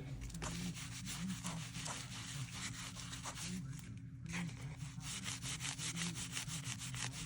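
Quick back-and-forth rubbing strokes of an applicator working a tan coat finish onto a veg-tan leather knife sheath, with a short pause about four seconds in. A steady low hum runs underneath.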